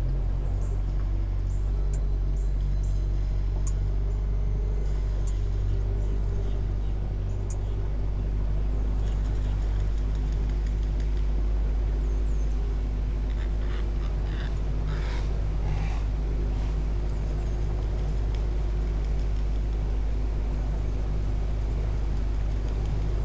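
Boat's outboard motor running steadily at cruising speed, a constant low drone.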